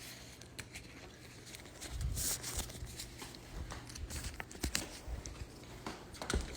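Scattered light knocks, taps and a short rustle of objects being handled, with a brief noisy burst about two seconds in.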